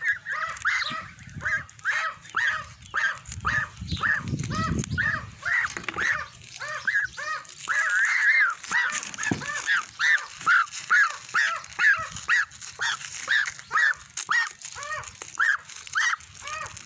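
Young goose, not yet six weeks old, giving a steady run of short peeping calls, about two or three a second, each rising and falling in pitch. A brief low rustle about four seconds in.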